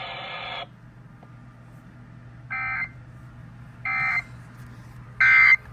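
NOAA Weather Radio EAS/SAME end-of-message signal: three short, buzzy digital data bursts about a second and a half apart, the third the loudest, marking the end of the required weekly test. A steady electronic tone cuts off just under a second in, before the bursts.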